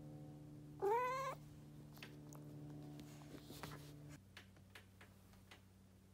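A domestic cat meows once, about a second in: a short call that rises in pitch. A steady low hum runs underneath and changes about four seconds in, with a few faint clicks after.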